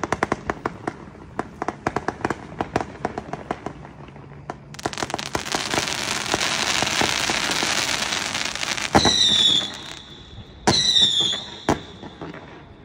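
Consumer fireworks going off: a fast run of crackling pops, then about four seconds of dense hissing spray. Two loud bursts follow, each with a short whistle falling in pitch, and then a single sharp crack.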